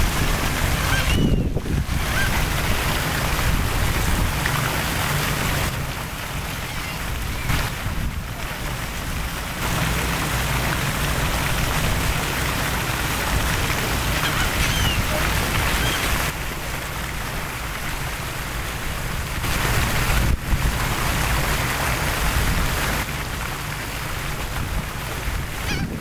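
Fountain jets splashing steadily into a shallow basin, with wind buffeting the microphone as a low rumble.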